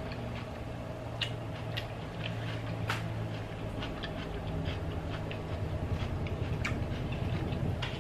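Close-up chewing of crunchy raw vegetables, with scattered wet mouth clicks. Under it runs a low hum that grows louder in the second half: a helicopter flying low overhead.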